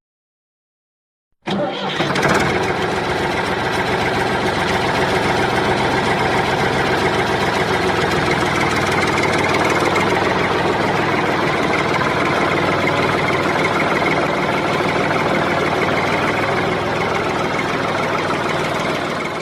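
A mini tractor's engine running steadily, coming in abruptly about a second and a half in.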